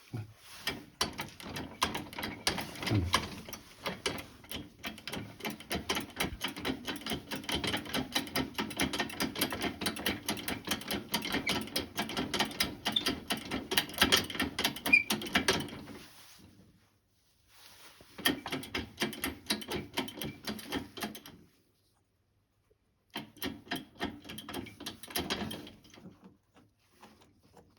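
A hand tool working on a car starter motor makes rapid clicking, scratching strokes, several a second, in three spells: a long one, then two shorter ones after brief pauses.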